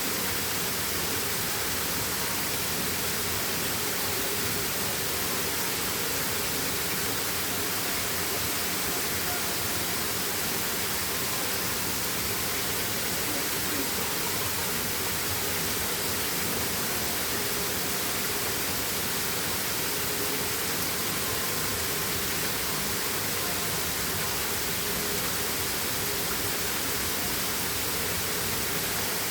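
Waterfall water rushing in a steady, unbroken hiss and roar, with no change.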